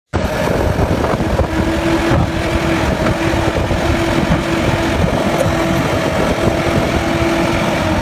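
Diesel engine of a Doosan crawler excavator running steadily while the machine works its boom to free itself from deep mud, with a steady whine over the engine that drops out now and then.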